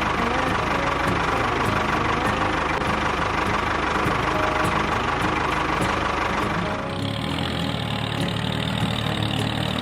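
Small engine running steadily with an even knocking rhythm; the sound changes abruptly about seven seconds in.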